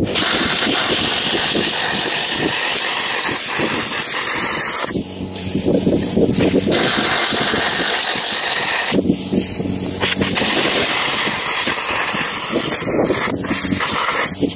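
Lidl Parkside PPSK 40 A1 plasma cutter cutting steel sheet: a loud steady hiss of the arc and air jet over the hum of its built-in compressor. The hiss drops out briefly twice, about five and nine seconds in. Set at only half power, the cut goes harder than it should.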